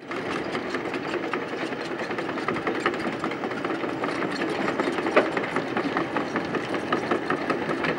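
A small engine running steadily, with a rapid clatter.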